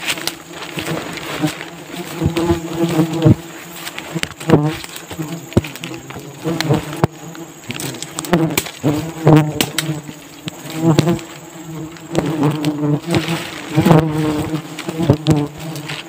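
A swarm of tawon buzzing close around the microphone from a nest that has just been taken. The hum swells and fades and bends in pitch as single insects fly past, over scattered rustles and knocks of leaves and handling.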